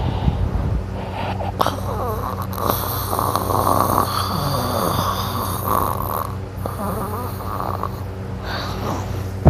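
A sleeping person snoring, with one long noisy breath lasting several seconds in the middle.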